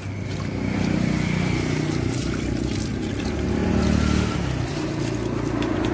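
Water pouring from a hose pipe into a steel basin, over a low engine-like rumble that swells twice.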